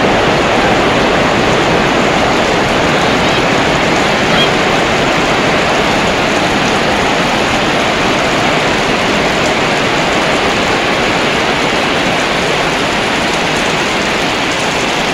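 Heavy storm rain pouring down in a loud, steady rush, heard from inside a large hall.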